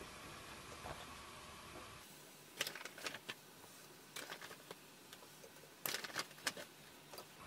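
Wooden skewers clacking against each other and the rim of a saucepan as skewered fish cakes are laid into the pot, in several quick flurries of light clicks.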